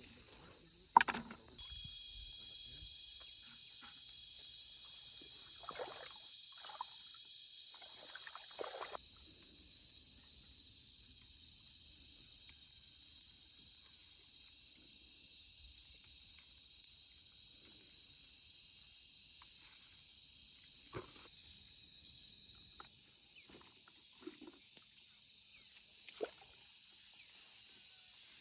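Steady high-pitched insect chorus that starts suddenly about two seconds in, thins out about nine seconds in and fades away near the end. A single sharp knock just before it is the loudest sound, with a few small knocks and rustles scattered after.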